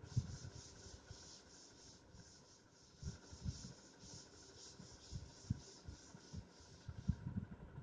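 Cloth wiping chalk off a chalkboard: quick repeated rubbing swishes, with soft irregular knocks of the board as it is pressed. The rubbing stops near the end.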